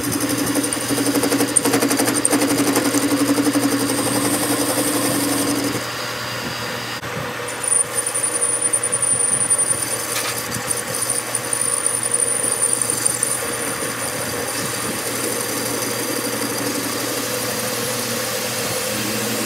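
Metal lathe running with its spindle turning a round metal part while a tool in the tool post takes a cut at the bore: a steady machine hum. The lower part of the hum drops away about six seconds in, and a faint high whine comes in for a few seconds soon after.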